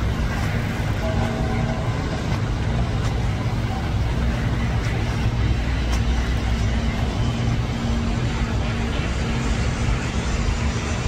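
A boat's engine running with a steady low rumble and a constant hum.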